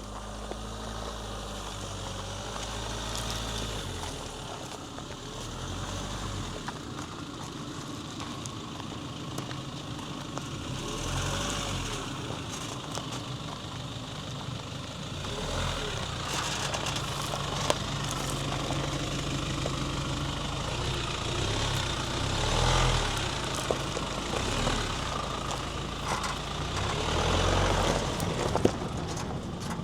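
Rely R8 pickup truck being driven over a rough dirt track, its engine drone rising and falling with the throttle, with a couple of sharp knocks from the truck jolting over the ground.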